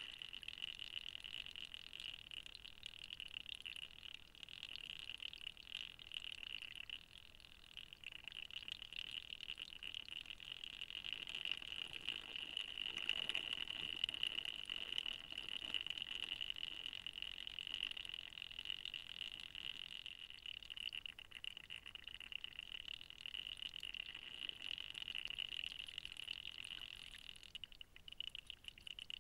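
Faint splashing of water as a small owl bathes in a shallow pool, loudest around the middle, over a steady high-pitched chirring note.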